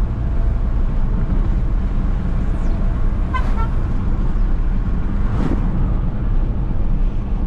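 Vehicle on the move: a steady low rumble of engine, road and wind noise, with a brief high-pitched toot about three and a half seconds in.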